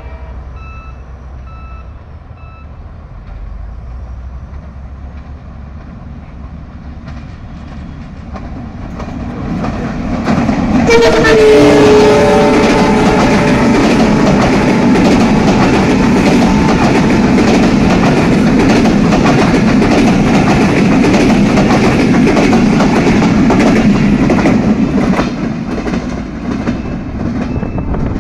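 Bangladesh Railway's Rupsha Express, a passenger train with PT INKA-built coaches, approaches and passes close by at speed. Its rumble builds, and its horn sounds and drops in pitch as the locomotive goes by about eleven seconds in. Then comes a loud steady rumble with fast clickety-clack from the wheels over the rail joints, fading near the end.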